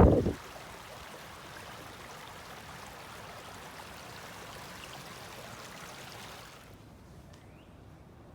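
Steady rushing of a flowing stream, which cuts off about six and a half seconds in, leaving a quieter background.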